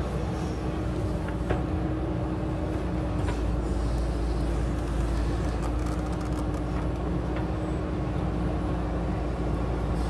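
JCB 3DX backhoe loader's diesel engine running steadily under load while the backhoe arm digs and swings. There are a few faint sharp knocks, the clearest about a second and a half in.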